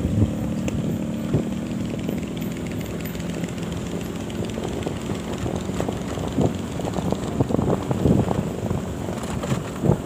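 Small motorcycle engine running steadily while riding along a road, with wind rumbling in gusts on the microphone, heavier in the second half.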